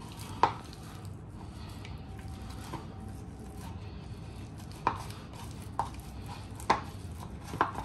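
A kitchen utensil knocking against a bowl while boiled potatoes are mashed into a paste. There are five sharp knocks: one about half a second in, then four roughly a second apart near the end.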